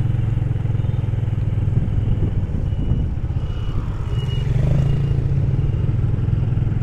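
Motorbike engine running steadily while riding, with road rumble; the engine note rises briefly a little past halfway, then settles back.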